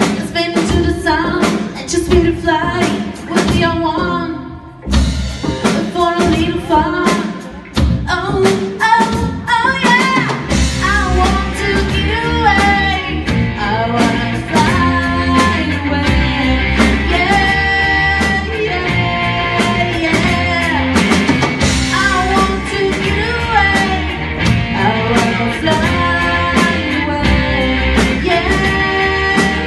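Live rock band: a woman singing over electric guitar and drum kit. The band fills out with a steady low end about ten seconds in.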